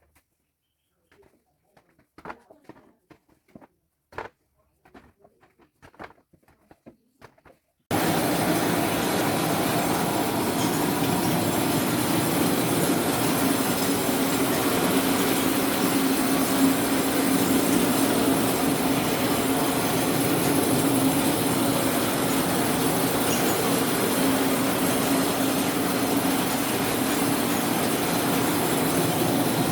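Faint scattered knocks, then about eight seconds in a citrus sorting machine starts abruptly and runs steadily with a loud mechanical rattle and a low hum, oranges tumbling over its rollers.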